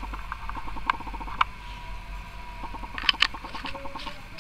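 A few sharp clicks and light taps as the rebuilt clearomizer is fitted to a Vamo variable-voltage mod, over faint rapid ticking.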